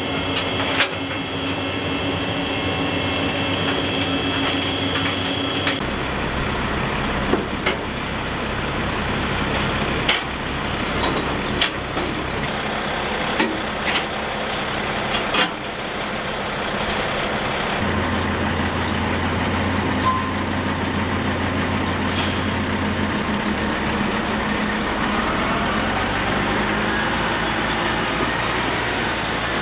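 Heavy military truck diesel engines running steadily, with scattered sharp metal clanks and rattles of tie-down chains. Near the end a rising whine comes in as the tractor truck pulls the trailer loaded with the helicopter.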